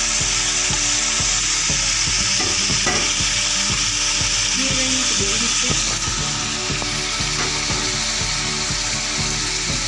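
Chicken, sliced tomatoes and green chillies sizzling in hot ghee in a steel pot, a loud steady sizzle that eases a little about six seconds in. A steel spatula knocks against the pot now and then.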